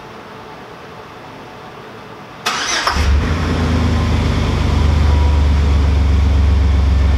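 Chevy Silverado 1500 pickup engine starting about two and a half seconds in, then running at a steady, low-pitched idle.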